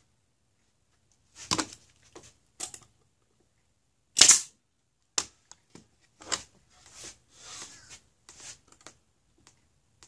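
Pneumatic brad nailer firing several sharp shots into the wooden roof of a birdhouse, the loudest about four seconds in, among softer knocks and rustles of handling.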